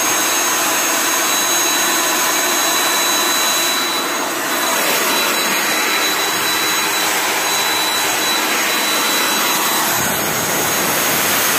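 Turbocharger-blown burn barrel furnace running on unfiltered waste oil: a loud, steady rushing noise with a high, steady whine over it.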